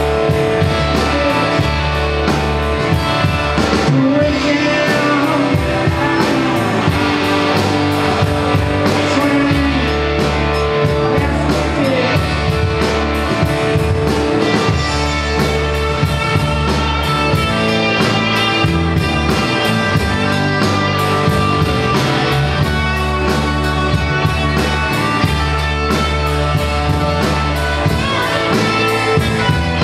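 Rock band playing live: electric guitars and bass over a drum kit, in one continuous passage.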